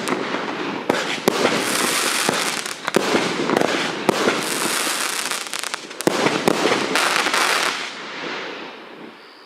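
Miracle 'Aircraft Carrier' 78-shot consumer firework cake firing its finale: many sharp reports go off over a dense, continuous crackle. The barrage thins and dies away over the last second or so.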